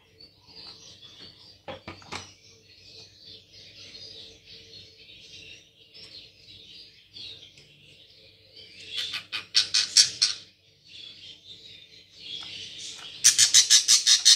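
Budgerigar chicks begging while being hand-fed: a steady high chittering, with bursts of rapid, regular squeaking about nine seconds in and again, loudest, from about thirteen seconds. Two light clicks about two seconds in.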